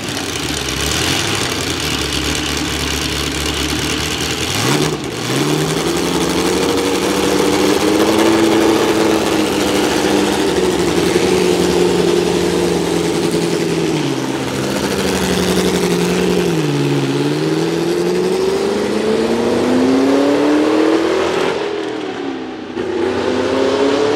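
BRM H16 sixteen-cylinder 3-litre Formula One engine running. It holds a low, steady idle for about five seconds, then revs up sharply and stays at raised revs, its pitch dipping and climbing again several times before rising once more near the end.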